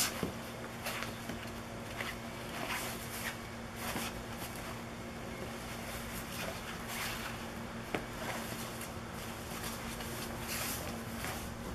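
Ferrets scrabbling at and pushing through the nylon fabric of a cat play mat, in repeated short rustles with soft taps of paws and claws, over a faint steady hum.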